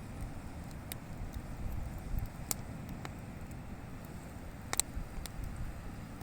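Campfire crackling, with a few sharp pops (the loudest about five seconds in), over a steady low rumble.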